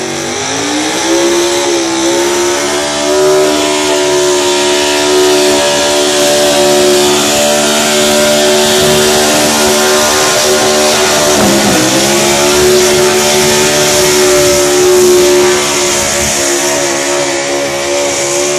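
A modified two-wheel-drive Chevy pickup's engine running hard at high revs while it pulls a weight-transfer sled. The revs climb in the first second or two, dip sharply for a moment about halfway through, then recover and hold high.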